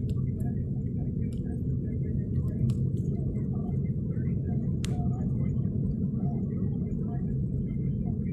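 Steady low road and engine noise of a car driving slowly, heard from inside the cabin, with a few faint ticks and one sharper click about five seconds in.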